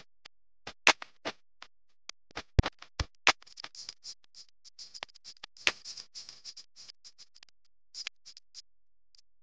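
A quick, irregular run of sharp clicks and taps, thickening into a dense crackle in the middle before thinning out near the end.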